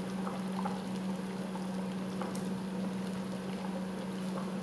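Thick blended bean puree being poured from a ceramic bowl into a pot of simmering broth, with a few faint soft plops. Under it runs a steady low hum.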